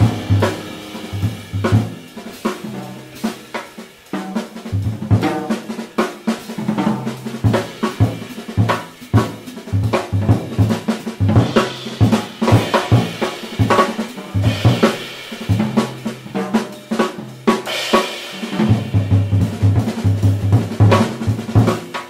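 Jazz drum solo on a drum kit: snare, bass drum, toms and cymbals, with rolls and rimshots. The horns stop right at the start, leaving the drums alone, with louder cymbal crashes around the middle and near the end.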